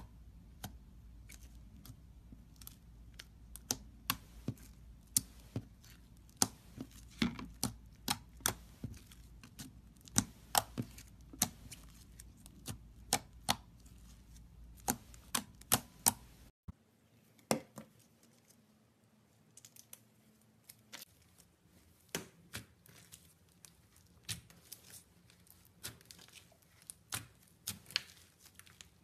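Slime being poked, pressed and stretched by hand, giving many sharp clicks and pops from air pockets, several a second. About two-thirds of the way through the recording changes abruptly, and the clicks become sparser and softer.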